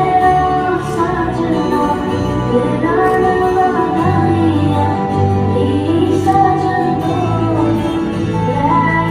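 A song with a woman singing long, gliding notes over instrumental backing.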